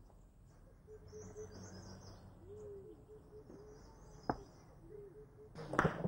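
Quiet outdoor ambience with a few bird calls, one sharp knock about four seconds in, and then hammer blows on stone starting just before the end.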